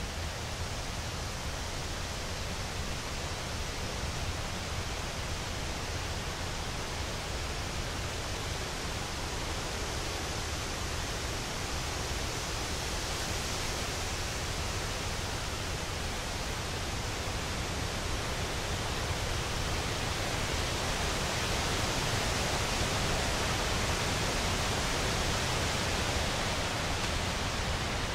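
Wind through quaking aspen leaves, a steady rustling hiss that swells louder about halfway through and again near the end, with a low rumble underneath.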